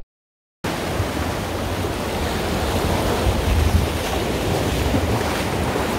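Sea waves washing against a rocky shore, with wind buffeting the microphone, a steady rushing noise that starts after a split second of silence.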